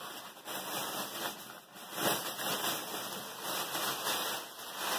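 Rustling of clothing being handled and moved about: a steady rustle that swells and fades as garments are shifted.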